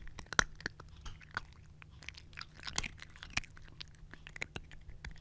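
Domestic cat eating dry kibble up close: rapid, irregular crunching as the pieces crack between its teeth, several crunches a second.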